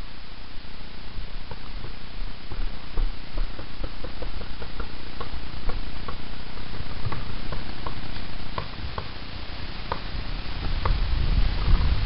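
Paintball gunfire: irregular sharp pops and knocks, sometimes several a second, over a low rumble of wind and handling on the camera microphone that swells near the end.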